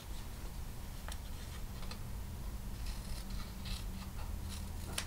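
Small sharp embroidery scissors snipping through fabric backed with paper-backed fusible: several short, quiet cuts about a second apart.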